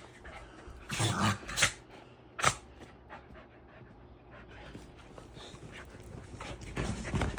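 Dogs panting and scuffling as they play over a toy, with a brief louder burst about a second in and a single sharp knock about two and a half seconds in.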